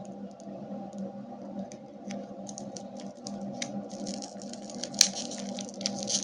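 Plastic candy wrapping being handled and opened: scattered small clicks and crinkling that grow denser and louder about two-thirds of the way through, with one sharp snap, over a steady low hum.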